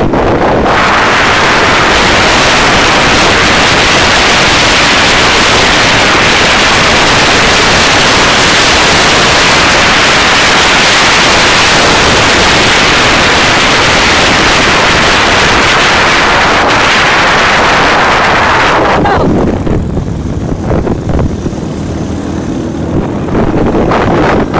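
Heavy wind blasting across the microphone at riding speed, a loud steady rush that drowns out everything else. It drops away for a few seconds near the end, where a motorbike engine comes through faintly, before the wind rush returns.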